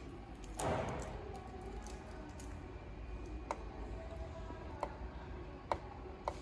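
Fingernail picking at and peeling up the tape along the edge of a resin 3D printer's LCD screen: a short rustle under a second in, then a few sharp, scattered clicks.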